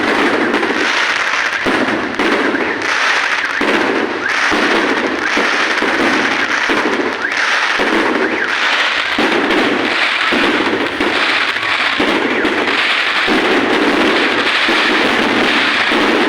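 Fireworks going off in a dense, continuous barrage of bangs and crackling, pulsing roughly once a second.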